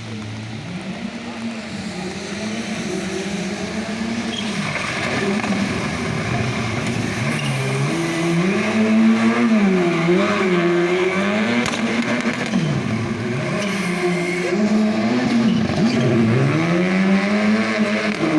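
Rally car engine revving up and falling back again and again as it is driven hard through the stage. It gets louder as the car comes closer, with some tyre noise in the second half.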